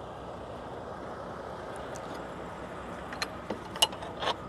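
Semi truck's diesel engine idling steadily, with a few light clicks and taps in the last second or so.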